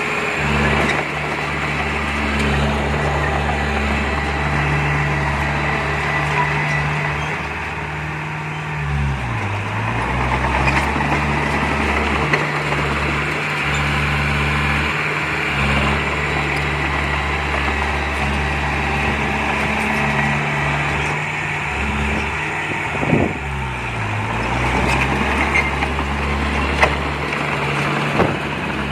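Komatsu D20P bulldozer's diesel engine running steadily, its pitch dipping briefly and recovering twice, about nine seconds in and again about twenty-three seconds in.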